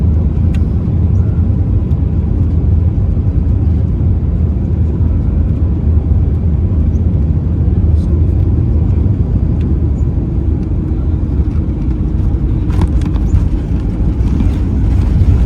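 Airbus A320 passenger cabin during descent: a steady, loud low rumble of engine and airflow noise heard from inside the cabin.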